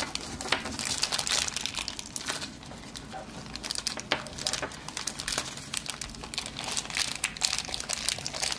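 A small clear plastic bag crinkling as it is handled and opened, a continuous run of quick crackles.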